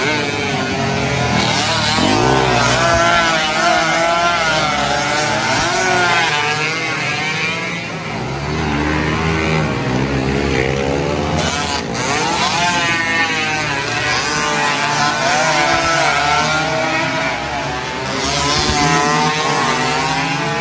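Several Suzuki AX100 two-stroke single-cylinder race motorcycles running at high revs as they race past, their engine notes overlapping and rising and falling in pitch with throttle and gear changes.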